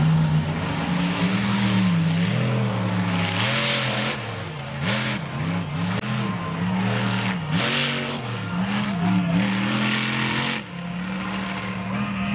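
Raminator monster truck's supercharged V8 revving hard, its pitch rising and falling again and again, with short bursts of hiss over it.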